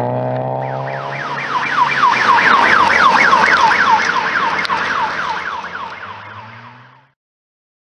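Vehicle siren sounding a rapid yelp, a quick falling wail repeated about four to five times a second, over a car engine's steady hum. It grows louder a second or two in, then fades and cuts off abruptly about seven seconds in.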